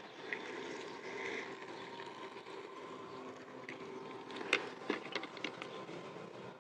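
Steady low hum of a distant engine over outdoor background noise, with a few sharp clicks and knocks about four and a half seconds in.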